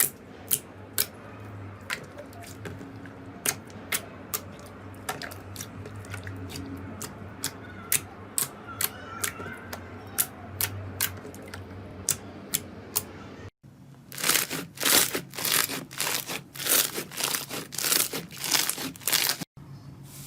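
Slime being worked by hand: sharp pops about twice a second, then, after a cut, a denser run of crackling and crunching squeezes.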